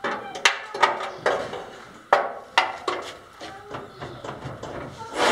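Irregular sharp metallic clinks and knocks, about two or three a second at first and thinning out toward the end, as steel parts of a gantry frame are handled and knocked together.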